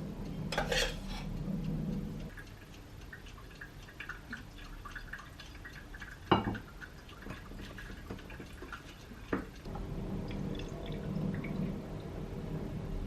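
Kitchen handling sounds: small clinks of dishes and utensils with light dripping, a brief clatter near the start and two sharp knocks, one about six seconds in and one about nine seconds in.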